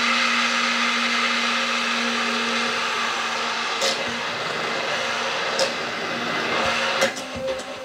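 Hand-held immersion blender running steadily in a tall plastic beaker, whirring as it emulsifies egg and oil into mayonnaise. About seven seconds in, the steady whir breaks up into short uneven pulses and clicks.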